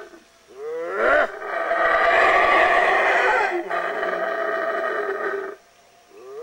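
Black howler monkeys howling: the call rises in pitch through the first second, then holds as one long loud roar for about four seconds before stopping. Another howl starts right at the end.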